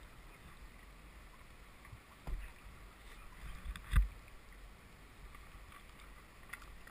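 Kayak knocking against fallen branches and logs while being edged through a tree-choked stream, over a faint wash of moving water. There is a dull thump about two seconds in and a sharper, louder knock about four seconds in.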